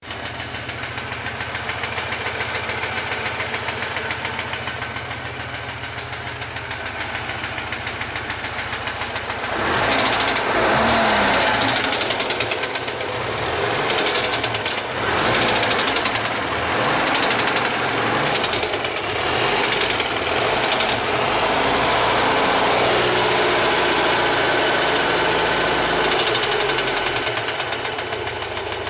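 Moskvich UZAM-412 four-cylinder engine running with a knock: it idles steadily, then from about ten seconds in it is revved up and down and runs louder.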